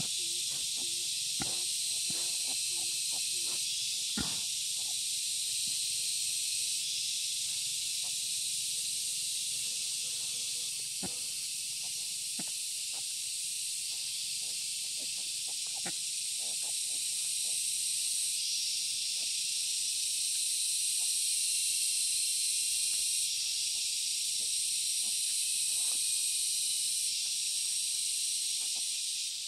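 Steady high-pitched insect chorus over a wild boar sow and her newborn striped piglets rooting in dry leaves and soil, giving scattered small clicks and rustles. A quick run of short low grunts comes at the start.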